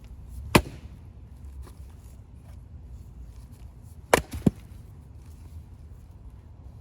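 Collins axe splitting firewood: one sharp chop into a log about half a second in, then another chop about three and a half seconds later, followed a third of a second after by a second knock.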